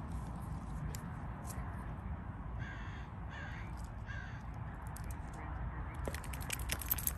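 A bird calling three times with short, harsh caws a little under a second apart, followed near the end by a quick cluster of light clicks.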